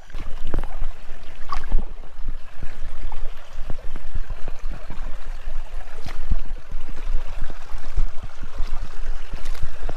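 Creek water running and gurgling close by, with many irregular low thumps and rumbles through it.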